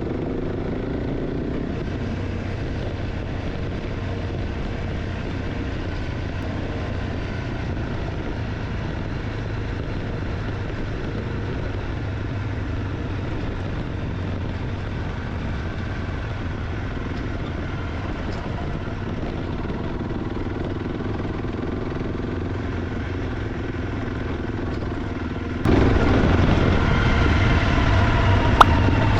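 Honda CRF300 Rally's single-cylinder engine running steadily as the bike rides along a forest track. Near the end the sound suddenly becomes louder and fuller, with one sharp click shortly after.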